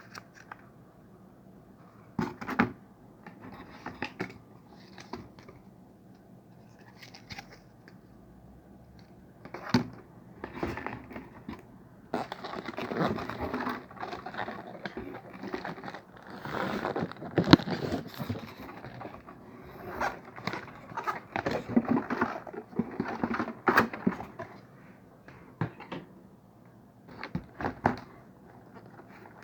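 Packaging being handled in an unboxing: plastic bags crinkling and rustling, with scattered clicks, knocks and scrapes of small parts and cardboard. The rustling is busiest through the middle.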